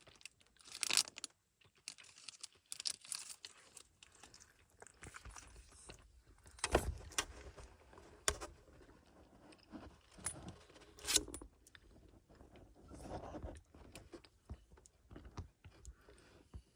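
Irregular metallic jingling, clicks and rustling, like small objects being handled, with a few sharper knocks.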